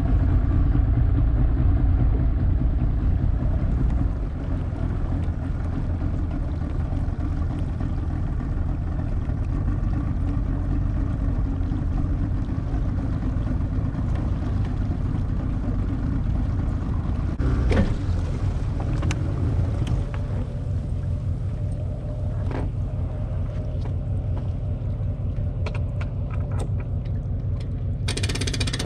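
A boat motor running steadily under way, a loud low rumble, with a sharp knock about two-thirds of the way through.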